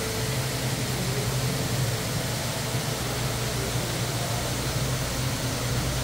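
Steady rush of artificial waterfalls spilling into a large indoor aquarium pool, over a steady low hum.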